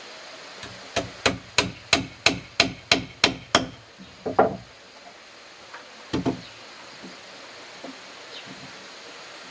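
A small hammer tapping on a wooden box frame: about nine quick, even taps, roughly three a second, then two single knocks a couple of seconds apart.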